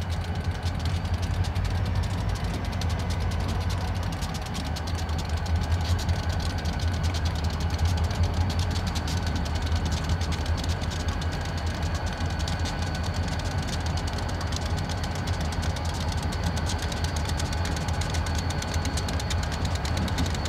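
Diesel locomotive engines of a freight train running steadily, a deep low rumble with a thin steady whine above it.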